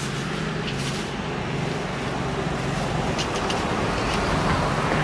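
Motor vehicle running: a steady rumble and hiss that grows a little louder toward the end.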